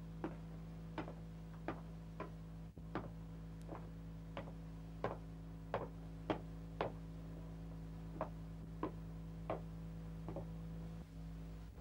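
Regular sharp ticking, about three ticks every two seconds, over a constant low electrical hum.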